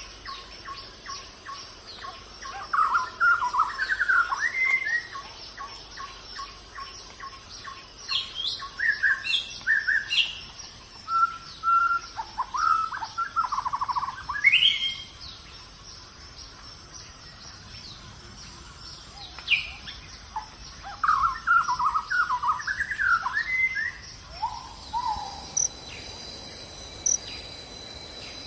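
Birds singing in short warbling phrases with quick chirps, in several bouts, over a steady high insect drone. Near the end a steady trill like crickets comes in.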